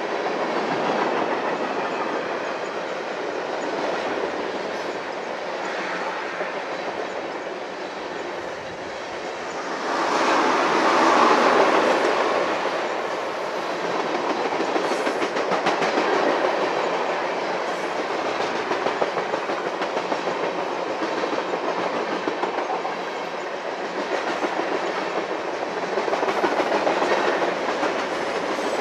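Train cars rolling past with their wheels clacking over the rail joints in a steady rumble, which swells louder for a couple of seconds about ten seconds in.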